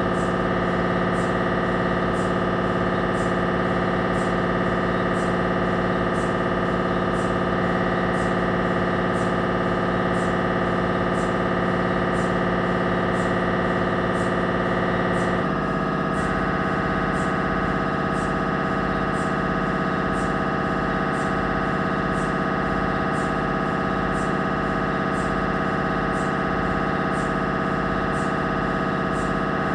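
Siemens Magnetom Avanto 1.5 T MRI scanner's gradient coils buzzing through a scan sequence: a steady drone of several tones with a faint, even ticking on top. The tone changes abruptly about halfway through, as the scanner moves to a different pattern.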